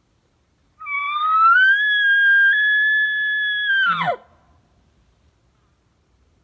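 An elk bugle: a high whistle that climbs, holds steady for about two seconds, then drops sharply to a low grunt near the end.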